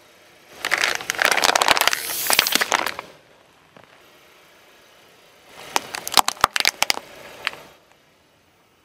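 A car tyre rolling over and crushing a pouch of laundry detergent pods: dense crackling and crunching for about two and a half seconds. After a short pause comes a second run of sharp plastic cracks and snaps as a small plastic toy skeleton is crushed.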